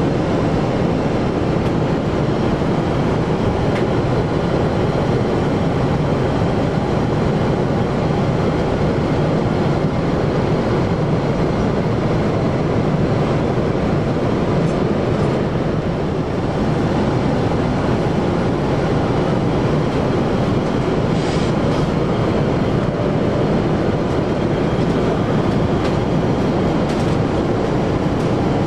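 Cabin noise of a Boeing 747-8 airliner in cruise flight: a steady rush of airflow and engine drone.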